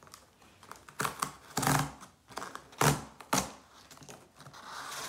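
Packaging of a MacBook Pro being handled during unboxing: about five sharp clicks and rustles in quick succession, one of them a longer rustle, then a softer rustle near the end.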